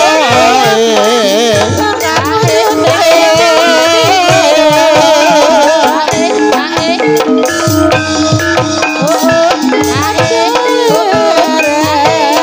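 Live Javanese gamelan music accompanying an ebeg horse dance. Metallophones ring steady notes over regular drum strokes, with a high wavering melody line held throughout.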